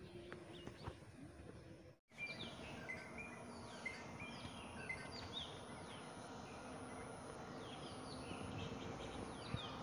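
Faint birdsong: many short, downward-sliding chirps from small birds over a steady outdoor background hiss, with a brief dropout about two seconds in.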